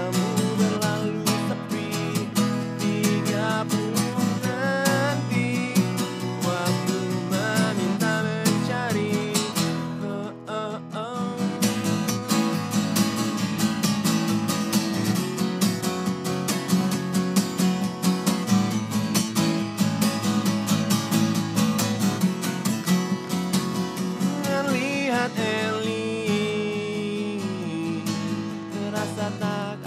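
Two acoustic guitars playing an instrumental passage of a song: steady strummed chords with a melodic line over them, briefly thinning out about a third of the way in.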